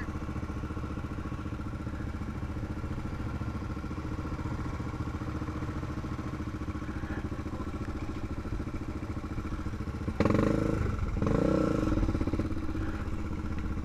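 Honda 400EX's single-cylinder four-stroke engine idling steadily, then revving louder about ten seconds in as the quad pulls away.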